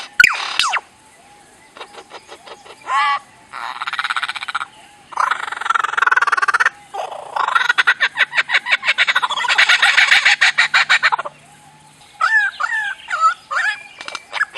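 Bouts of rapid, pulsed croaking animal calls, several in a row, followed near the end by a short run of warbling chirps.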